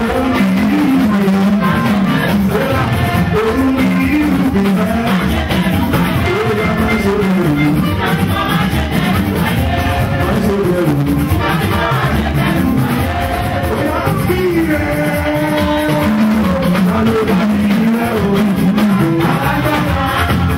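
Loud live band music with a singer's voice carrying the melody over a steady accompaniment.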